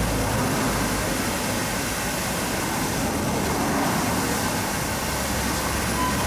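Narrow-gauge steam tank locomotive 'Spreewald' standing in steam: a steady hiss with a low rumble underneath.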